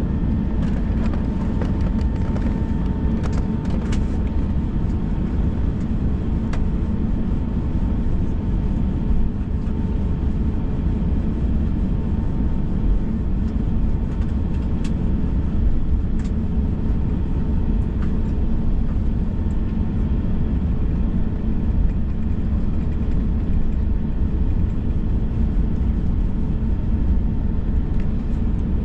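Steady cabin noise inside an Airbus A321 on the ground with its engines at idle: a deep, even rumble with a faint steady hum over it.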